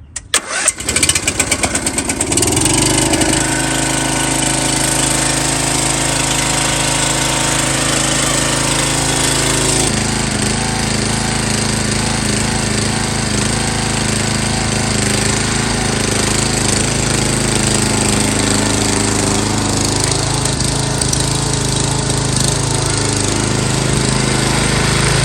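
MTD Yard Bug riding mower engine turned over by the starter and catching within about two seconds, then running steadily. Its note changes about ten seconds in.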